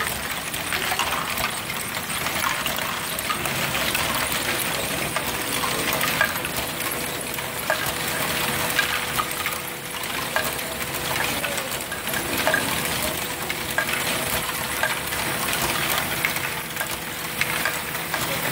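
Many small plastic balls clicking and clattering continuously through motorised Lego Great Ball Contraption modules, over a steady hum.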